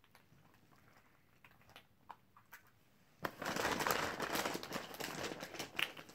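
A few faint plastic clicks, then about three seconds in a dense crinkling and rustling of candy wrappers and the plastic candy bag as hands dig through them, full of small crackles, for about three seconds.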